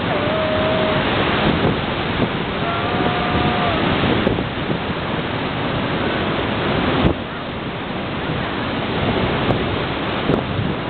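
Heavy storm surf from a typhoon swell: a dense, continuous rush of breaking waves and wind. The level dips suddenly about seven seconds in.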